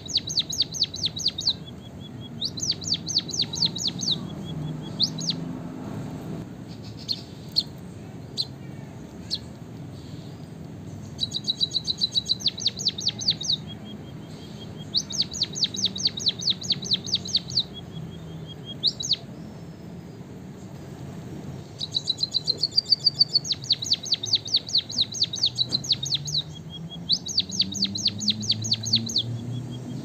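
White-headed munia singing: repeated phrases of rapid, evenly spaced high clicking notes, about eight a second, each phrase lasting one to two seconds. Some phrases open with a thin, steady whistle, and short pauses fall between them.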